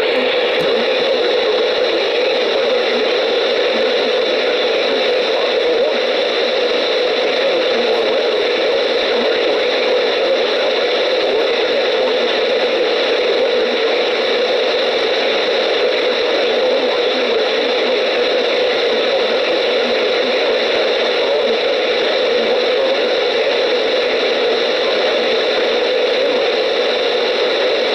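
Steady radio static: an even, loud hiss from a receiver with no program coming through, with faint steady whines in it.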